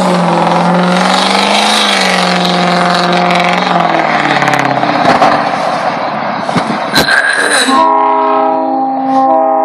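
A vehicle's engine note drops slowly under a haze of wind noise. About eight seconds in, a Nathan AirChime P3 three-chime train horn, fed from an onboard air tank, sounds a loud, steady chord.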